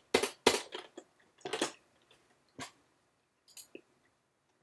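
Keystrokes on a computer keyboard: two sharp key taps in the first half second, then sparser single clicks about a second apart.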